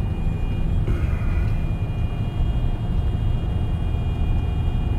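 Freightliner Cascadia semi truck heard from inside the cab, rolling downhill loaded in eighth gear with the engine running at around 1500 RPM and the service brakes off. It is a steady low engine drone and road rumble with a faint steady high whine over it.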